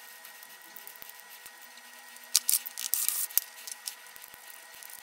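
Scalpel blade scraping excess PLA plastic off the edge of a 3D-printed part: short scratchy strokes, most of them clustered about two and a half to three and a half seconds in, over a faint steady hum.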